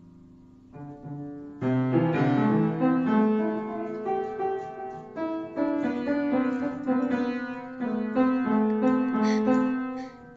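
Upright piano notes struck one after another and left ringing over each other as a cat presses the keys with its paws. It is faint at first and louder from about a second and a half in.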